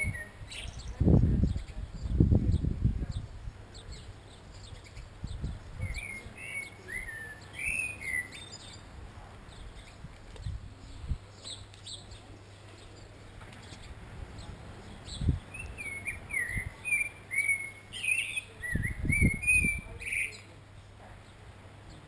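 Common blackbird singing: two bouts of low, fluting warbled phrases, each run through with high, thin twittering, about six seconds in and again from about sixteen to twenty seconds in. Low rumbles on the microphone come between one and three seconds in and again near the end.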